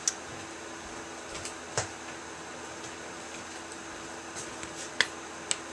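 Quiet room tone with a steady low hum, broken by a few light clicks and taps from a small plastic bottle being handled; the sharpest two come close together about five seconds in.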